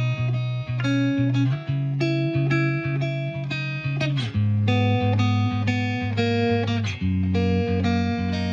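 Background music: a melody of short plucked guitar notes over sustained low bass notes.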